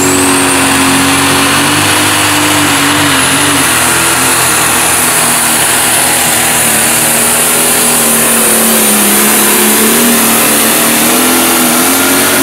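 Pro stock pulling tractor's turbocharged diesel engine at full throttle under load, dragging the weight sled, with a high turbo whistle that rises at the start and then holds. The engine note sags a little past the middle as the sled's load builds.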